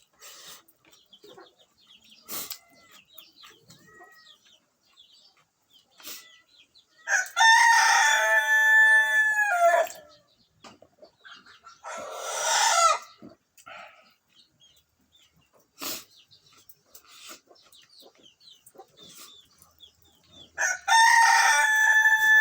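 A rooster crowing twice, each crow about three seconds long, with a shorter harsh call between them.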